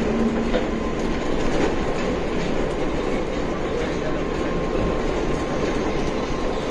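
Steady running noise inside a KL Monorail car in motion: rubber tyres rolling along the concrete guideway beam, with a faint steady whine and a few light clicks.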